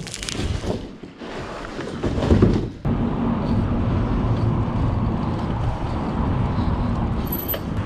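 Rustling and knocking of a bicycle being handled in its cardboard box. After a sudden break near three seconds, steady road and wind noise follows as a 29-inch aluminium mountain bike is ridden over paving.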